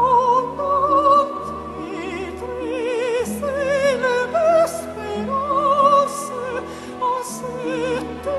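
A male sopranist singing a Christmas song in an operatic style, holding high notes with wide vibrato over instrumental accompaniment.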